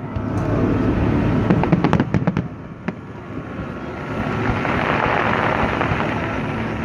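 Fireworks going off: a deep rumble of bursts with a quick run of sharp bangs about two seconds in, then a steady rushing noise for the second half.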